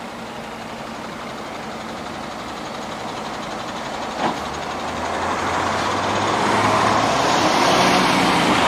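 A lorry driving past, its engine and tyre noise growing louder as it approaches and peaking near the end, with a brief knock about four seconds in.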